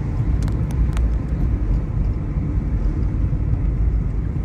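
Car driving, heard from inside the cabin: steady low road and engine rumble, with a few light clicks in the first second.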